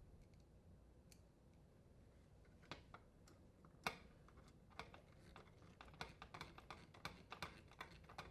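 Faint, irregular clicks and taps of screws being driven with a nut driver to fasten an insulation panel and grounding wire to a dishwasher door hinge. One louder click comes just before four seconds in, and the clicks come more often after that.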